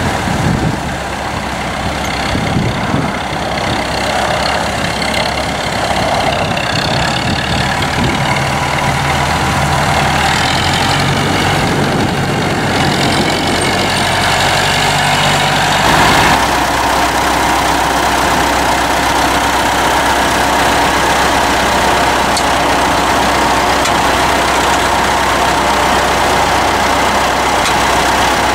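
Massey Ferguson 165 tractor engine running while the tractor is driven, its sound shifting for the first sixteen seconds or so. About sixteen seconds in it changes to a steady idle.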